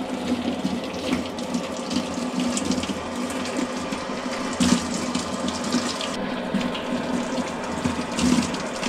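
Water streaming steadily from the built-in Active WaterJet faucet of a Samsung top-load washing machine, with a low steady hum underneath.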